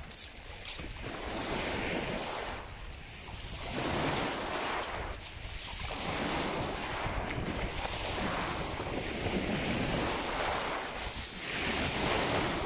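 Small waves breaking and washing up a shingle beach, swelling and easing every second or two, with dogs splashing through the shallow surf and wind buffeting the microphone.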